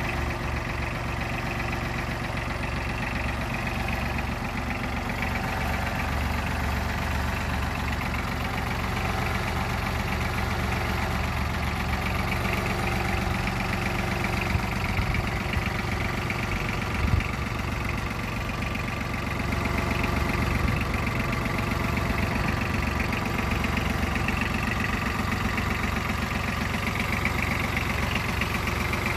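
Yanmar Ke-4 compact tractor's diesel engine idling steadily, with a short knock a little past halfway and growing slightly louder about two-thirds of the way through.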